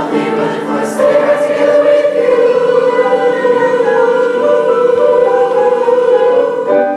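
A large high school choir singing, ending on one long held final chord from about a second in that cuts off just before the end.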